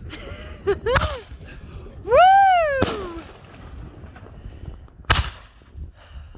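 Consumer fireworks going off: sharp bangs about a second in and near three seconds, and a louder bang about five seconds in. A person's 'woo!' cheer rises and falls between the first two.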